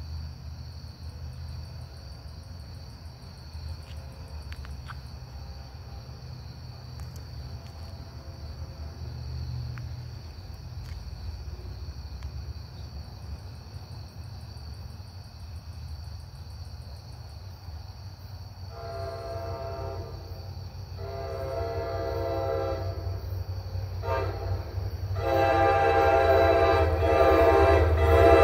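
Approaching New Jersey Transit train sounding its horn for the grade crossing: two long blasts, a short one, then a final long blast, the standard crossing signal. The horn gets louder over a low rumble that builds as the train nears.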